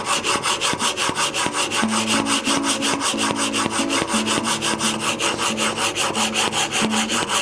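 Bailey No. 5 plane iron in a roller honing guide being pushed back and forth on an extra-coarse diamond sharpening stone: a fast, even rhythm of several gritty scraping strokes a second as the 30-degree bevel is honed.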